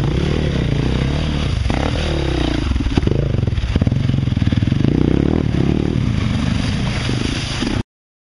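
Off-road dirt bike engine revving up and down as the bike rides through a shallow creek, with water splashing around the wheels. The sound cuts off suddenly near the end.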